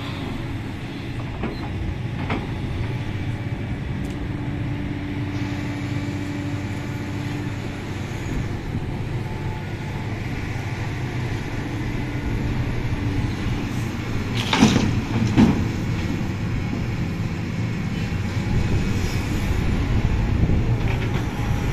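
Sumitomo 350 hydraulic excavator's diesel engine running steadily under load as it digs soil and swings it to a dump truck. Two loud knocks come less than a second apart a little past the middle.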